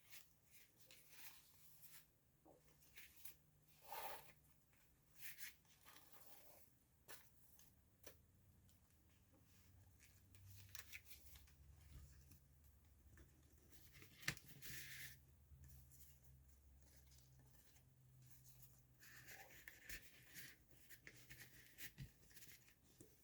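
Faint rustling and brushing of a handmade junk journal's paper pages, tags and notecards being handled and turned, in short scattered strokes with one sharper click about two-thirds of the way through.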